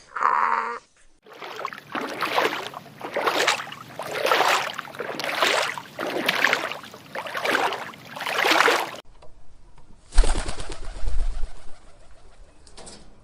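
An animal calling over and over, about once a second, in a run of roughly eight calls. It breaks off about nine seconds in, and a quieter stretch follows with a brief low rumble.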